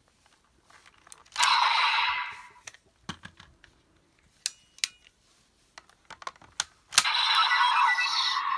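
Plastic clicks of toy buckles being handled and snapped into a Kamen Rider Geats toy transformation belt. The belt plays its electronic sound effects twice: a short one about a second and a half in, and a longer one that starts with a sharp click about seven seconds in.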